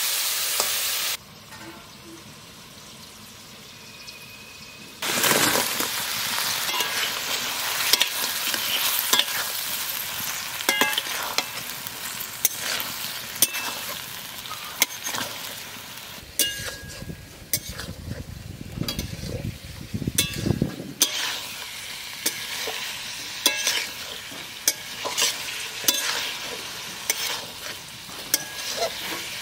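Goat lung and potato kofta frying in masala in a metal kadai, sizzling, while a metal spatula stirs them with repeated scraping clicks against the pan. The sizzle drops away about a second in and comes back loudly about five seconds in.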